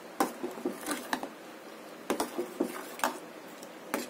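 A ladle stirring thick payasam in a metal pot, knocking and scraping against the pot at irregular intervals.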